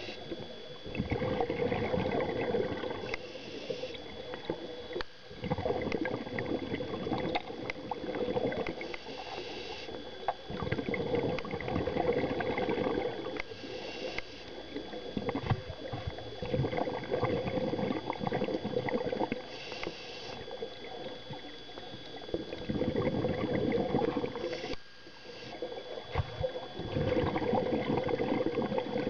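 Scuba diver breathing through a regulator underwater: a short hiss of inhalation about every five seconds, each followed by a few seconds of bubbling, gurgling exhaust, about five breaths in all.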